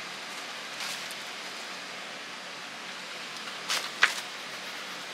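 Steady hiss, with a brief rustle and then a short soft slap about four seconds in as a large desk mat is flipped over on a desktop.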